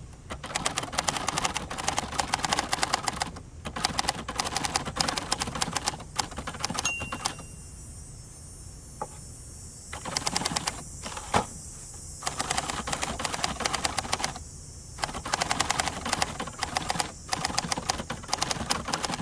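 Keystrokes on a 1967 second-generation Hermes 3000 manual typewriter, typed in quick runs of sharp clicks, with a pause of about two seconds near the middle.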